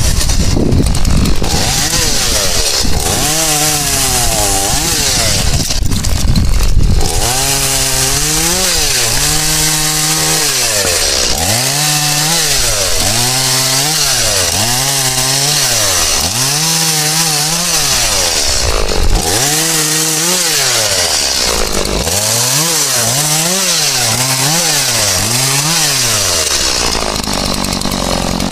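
Stihl MS 180 two-stroke chainsaw cutting through branches. It runs under load for the first several seconds, then is revved up and let drop again and again, about once a second, and settles lower near the end.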